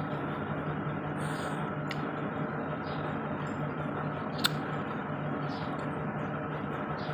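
Steady hiss and low hum, with one sharp, ringing click about four and a half seconds in, chopsticks knocking against a glass bowl.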